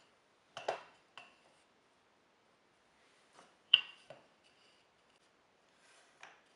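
Wooden picture-frame strips being set into a plywood and MDF clamping jig: scattered light knocks and clacks of wood on wood, the loudest about four seconds in, with faint rubbing as the pieces slide into place.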